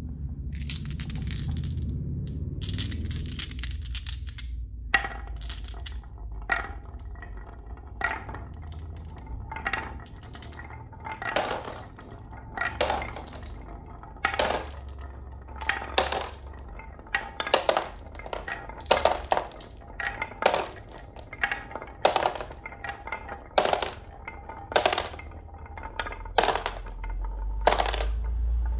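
Marbles rolling down a wooden track with a wavy carved groove, clicking and clattering against the wood as they swing through the bends. After a few seconds of continuous rattling, the clatter comes in sharp bursts about every one and a half seconds.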